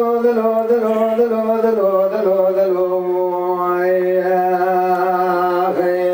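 A man singing a Kurdish dengbêj song solo into a microphone, holding long, slightly wavering notes that step down in pitch about two seconds in, with a short breath break near the end.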